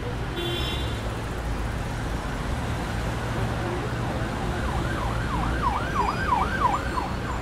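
Emergency-vehicle siren in fast yelp mode, its pitch sweeping up and down about three times a second, coming in about halfway through over steady background noise.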